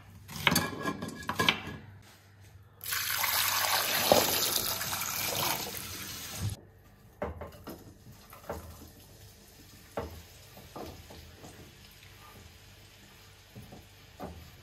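Tap water running into a stainless-steel pot of eggs for about four seconds, then cutting off suddenly. After that come a few soft, scattered knocks as sliced onion is pushed off a wooden board into a frying pan.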